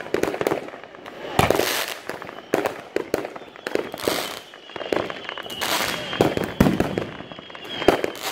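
Fireworks going off in quick succession: sharp bangs and crackling bursts, with louder volleys every second or two. A thin, steady high whistle runs through the second half.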